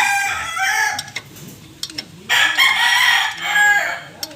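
Rooster crowing twice: one crow ending about a second in, and a second full crow starting about two seconds in.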